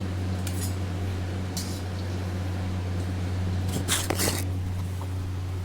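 Batter-coated dough pieces going into hot oil in a kadai, with short sizzles about half a second in, at a second and a half, and a louder cluster around four seconds, over a steady low hum.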